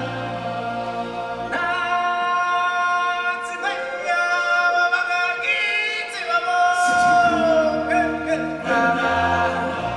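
A choir sings in long held notes as part of the show's music. The low voices drop out for a few seconds, and a lead voice slides down in pitch about seven seconds in.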